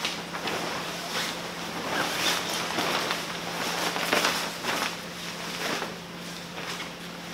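Tent sunshade canopy fabric rustling and swishing in a series of strokes as it is pulled and draped over the tent's steel frame, loudest in the middle.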